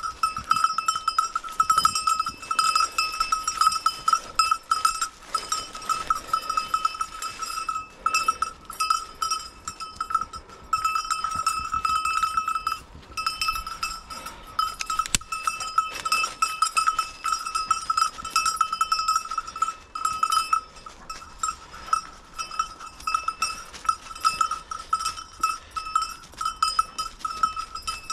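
A bell on a hunting dog's collar rings on and off, jangling unevenly as the dog works through cover, with only a couple of brief pauses.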